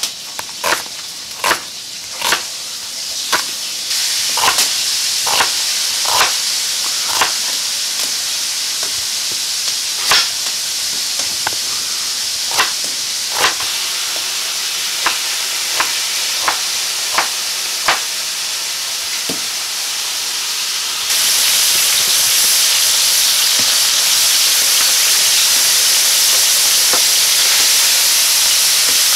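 Chef's knife chopping onion on a wooden cutting board, a sharp stroke about once a second, over a growing hiss. About two-thirds of the way through, the sound switches to a louder, steady sizzle of pork chops frying in a plough-disc pan.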